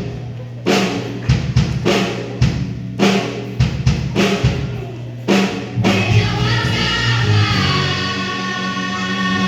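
Band music: a drum kit with bass drum and snare plays a beat under a bass line. About six seconds in the drumming stops and the band rings out on a long held chord.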